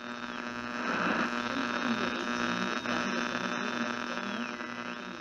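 Steady electrical hum and static with a high whistle that dips in pitch and rises back near the end.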